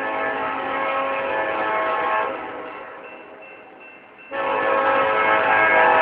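Union Pacific freight locomotive's air horn blowing a chord of several tones: one long blast that fades out a little after two seconds in, then a second, louder blast starting abruptly a little after four seconds in.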